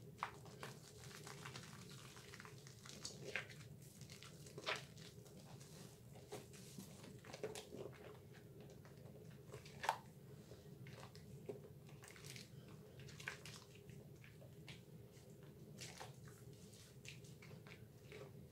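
Faint wet squelches and small irregular clicks of soapy hands squeezing and rubbing a thick lather of Dove bar soap, with one sharper click about ten seconds in.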